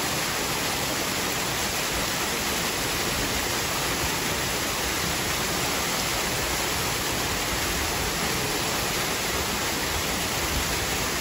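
Steady rush of water pouring and churning into the pool of a zoo enclosure.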